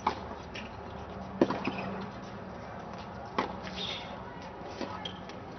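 Tennis rally: four sharp knocks of racket and ball, spaced about one and a half to two seconds apart, the loudest about a second and a half in.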